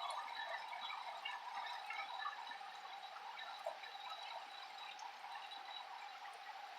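Heavy rain falling steadily, with scattered individual drops ticking close by. It eases off slightly in the first second or so.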